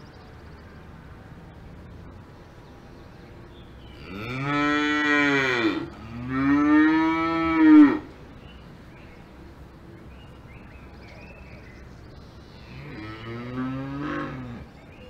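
Cattle mooing: two long moos back to back about four seconds in, each rising then falling in pitch, the second louder, then a quieter moo near the end.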